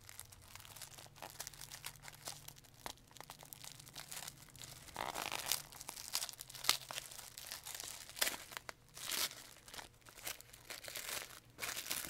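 Wrapping being crinkled and torn by hand as a gift is unwrapped, in irregular crackles with louder bursts in the second half.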